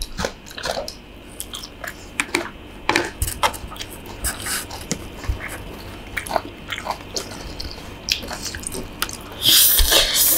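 Close-up chewing and biting of stir-fried instant noodles with chicken and fried egg, with many small irregular mouth clicks and smacks. A short, louder rush of noise comes near the end.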